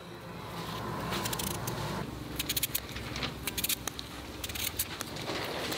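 A knife cutting a raw potato held in the hand: a string of short, crisp clicks as the blade cuts through, most of them from about two seconds in, over a low steady hum.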